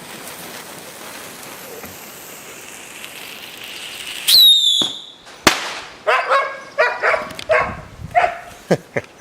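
Whistling bottle rocket going off: a hiss builds, then a short loud whistle drops in pitch about four seconds in, followed a second later by a sharp bang. A dog then barks about six times in quick succession.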